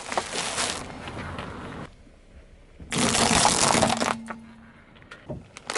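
Car tyre rolling over objects on asphalt and crushing them, giving crunching, crackling noise. One stretch of crunching lasts about the first two seconds, and a louder one comes about three seconds in and lasts about a second, with a faint steady low hum under it.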